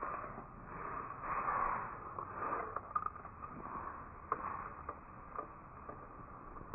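Recreated Nothronychus mckinleyi vocalization, a designed creature sound built from Indian peafowl, nene and mute swan recordings: a string of noisy swells of up to about a second each, with a few short clicks between them.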